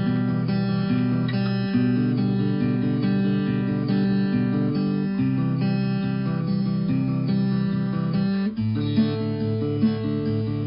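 Background music: strummed acoustic guitar chords with a steady beat.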